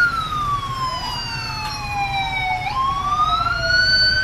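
Police siren wailing, two overlapping wails slowly sliding down and back up in pitch.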